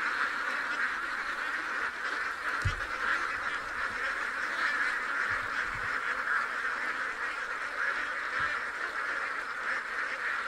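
A large flock of domestic ducks quacking all together in a dense, continuous chatter. A few brief low thumps come through under it.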